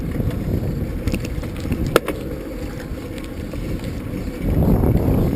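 Wind buffeting the microphone in a low rumble that eases in the middle and swells again near the end, with one sharp click about two seconds in.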